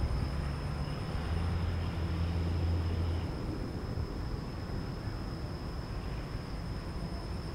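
Low steady motor rumble, loudest from about one to three seconds in, under a steady high-pitched whine.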